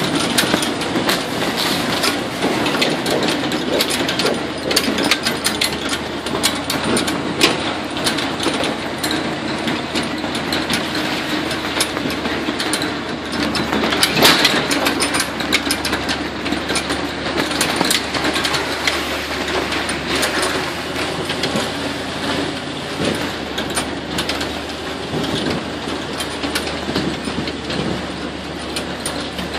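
Swamp buggy driving along a bumpy dirt trail: its engine running steadily under a constant clatter and rattle of the open vehicle's frame, with a stronger jolt about halfway.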